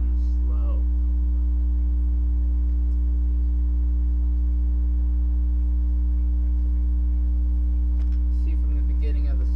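Steady electrical mains hum on the recording, a low drone with higher overtones that does not change. A few spoken words come briefly at the start and again near the end.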